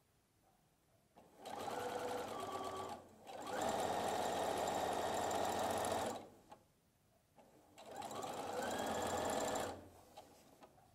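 Brother electric sewing machine stitching along a folded fabric binding tape in three runs with short pauses between, the motor speeding up at the start of a run and slowing down at its end.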